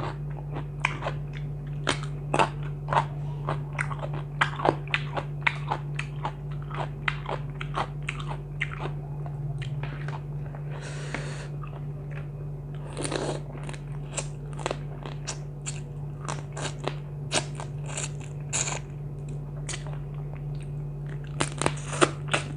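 Close-up eating sounds: a person biting and chewing crunchy food, with many sharp, irregular crunches over a steady low hum.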